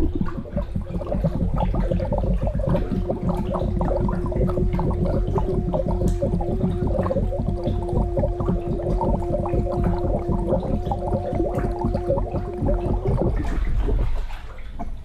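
A person holding one long sung note underwater, muffled and mixed with gurgling bubbles. The note stops about thirteen seconds in, leaving only bubbling.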